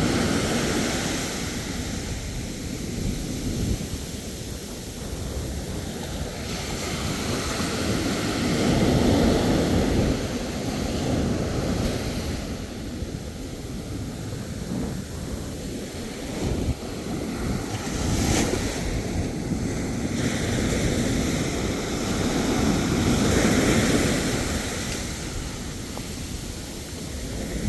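Ocean surf: waves breaking and washing in slow surges, loudest about nine seconds in and again near twenty-four seconds, with wind rumbling on the microphone.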